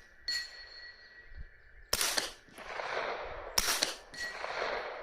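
Suppressed 9mm AR-9 carbine firing two shots about a second and a half apart, each trailing off in a short echo. Short ringing pings sound shortly after the shots, one near the start and one after the second shot.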